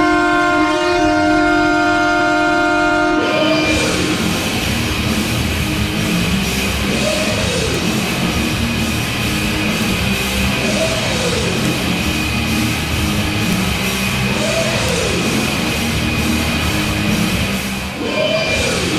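Hockey goal horn blowing a steady, multi-tone chord, which cuts off about three seconds in. Loud rock goal song with a beat follows, with a falling swoop that comes back about every three and a half seconds.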